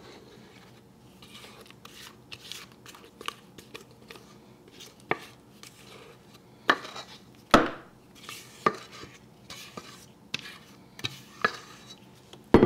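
Spatula scraping thick, wet batter out of a stainless steel mixing bowl into a metal baking pan: irregular scrapes with knocks of the spatula against the bowl, a few of them louder past the middle.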